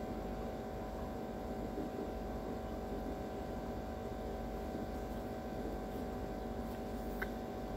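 A steady, buzzy electrical hum made of many even tones.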